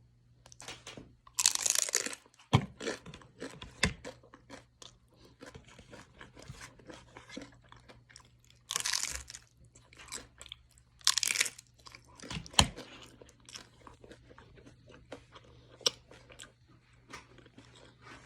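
Hard-shell taco being bitten and chewed: three loud crunching bites, one near the start, one about nine seconds in and one about eleven seconds in, with quieter crunchy chewing between them.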